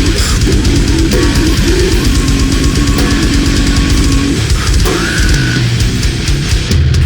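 Death metal song playing: fast, heavy drumming under distorted guitars.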